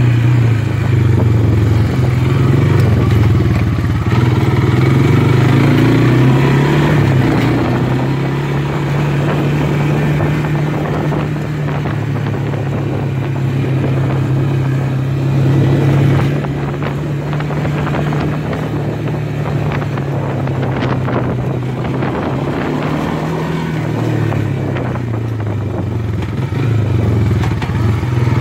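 Honda FourTrax 300 ATV's single-cylinder four-stroke engine running as the quad is ridden along a trail, its note dropping and rising a few times with the throttle.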